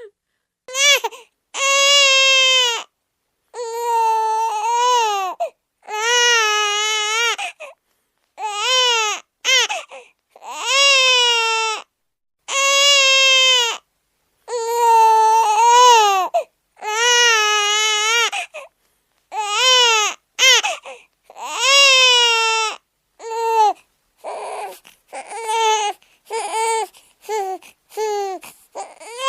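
High-pitched crying like a baby's: a run of loud wails, each a second or two long, rising and falling in pitch, with short breaks between them. Near the end the cries become shorter and come in quicker succession, like sobbing.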